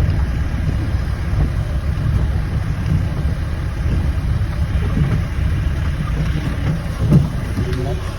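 A vehicle running with a steady low rumble, with a brief louder moment about seven seconds in.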